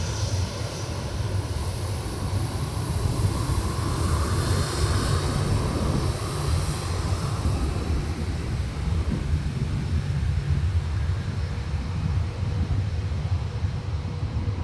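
Boeing 737 airliner's turbofan engines running steadily with a heavy low rumble. A high thin whine fades away over the first half.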